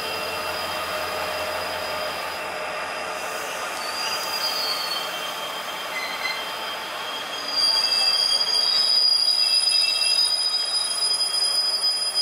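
Passenger train coaches rolling slowly, their steel wheels squealing against the rails in several steady high-pitched tones. The squeal gets louder about seven and a half seconds in.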